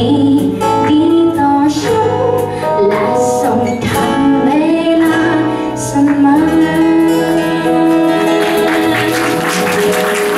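Woman singing a Thai worship song in a live acoustic band, with strummed acoustic guitars and a bass guitar playing along.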